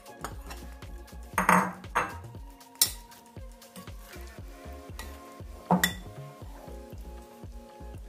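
Metal spoon scraping and clinking against a glass mixing bowl as chicken pieces are tossed in flour, with three louder knocks spread through. Background music with a steady beat plays underneath.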